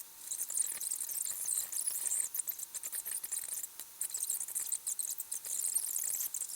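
High, scratchy chittering made of many quick tiny clicks, typical of the original sound track of a time-lapse played back sped up.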